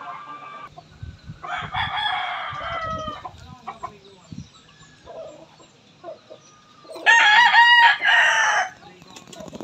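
Roosters crowing: one crow about a second and a half in, and a louder one about seven seconds in.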